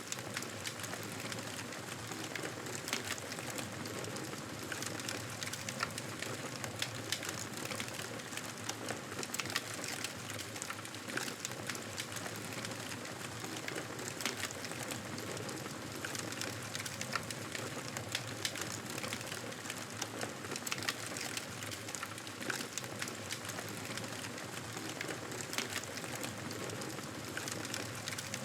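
Wood fire crackling in a fireplace: a steady hiss with many irregular small pops and snaps throughout.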